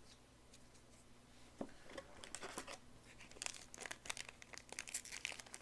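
Trading-card booster pack wrapper crinkling and tearing as it is pulled open by hand, a run of sharp, irregular crackles that starts about one and a half seconds in and grows busier.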